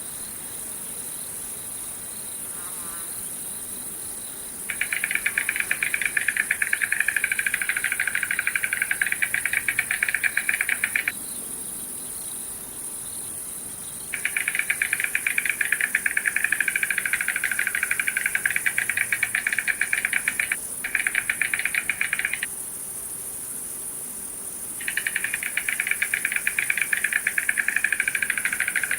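Insect trilling: a rapid, even pulsing buzz in three loud bouts of several seconds each, the second one briefly broken near its end, over a steady high-pitched hiss.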